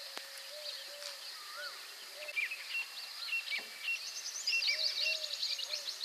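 Mixed chorus of wild birds calling and singing: rapid high twittering and chirps, a run of short repeated high notes in the middle, and soft lower calls repeating throughout.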